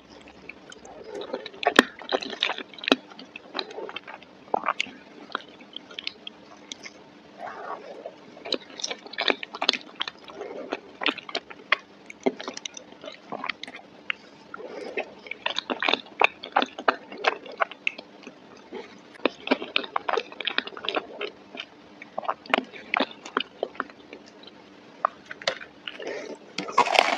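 Close-miked wet chewing and mouth smacking of creamy macaroni and cheese, with irregular sharp clicks and smacks.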